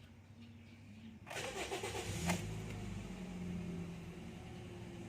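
2014 Toyota Vios four-cylinder petrol engine starting about a second in, catching at once after brief cranking, then running at a steady idle whose pitch eases down slightly. The quick start shows the hard starting has been cured by replacing a clogged fuel filter.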